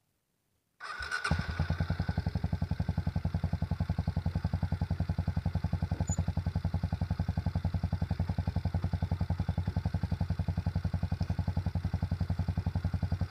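Stockman 250's air-cooled single-cylinder engine starting up about a second in, then idling with an even, steady beat, on its first start after an oil change.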